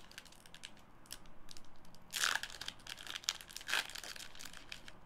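Hockey card pack wrapper being torn open and crinkled by hand: a run of small crackles, with two louder rips, one about two seconds in and another a second and a half later.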